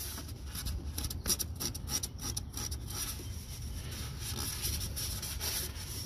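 A paper towel rubbing and scuffing against the inside of a plastic air filter housing as it is wiped clean, in quick repeated strokes that come thickest in the first half.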